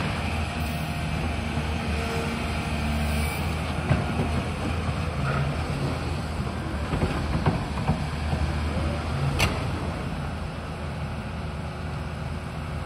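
Tracked demolition excavator's diesel engine running steadily, with a few sharp knocks and cracks from the demolition work, the strongest about nine seconds in.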